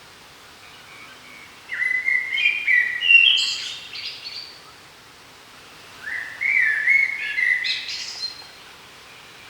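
A songbird singing two phrases of clear, stepped whistled notes, each about two and a half seconds long and climbing in pitch towards the end.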